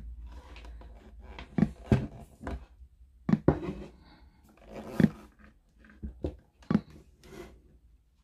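Plastic casing of a Blaupunkt DAB radio knocking and rubbing against a wooden desk as it is handled and turned over: a string of irregular knocks and scrapes.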